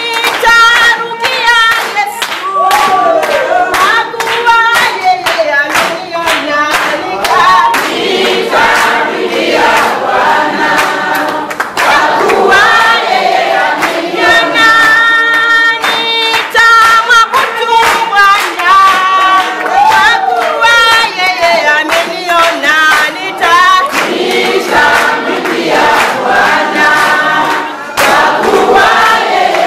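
A group of voices singing a gospel song together, with hand-clapping, and a brief drop near the end.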